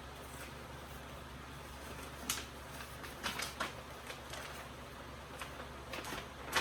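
Trading cards and papers being handled and sorted: scattered light clicks and rustles, about half a dozen, over a steady low hum.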